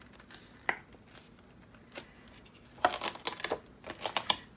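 Glossy paper junk-mail flyer being folded and handled: a single click a little under a second in, then a run of quick paper rustles and crinkles from about three seconds in.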